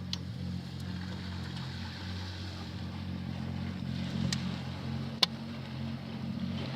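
A boat engine running steadily at a low hum, with a sharp click about five seconds in.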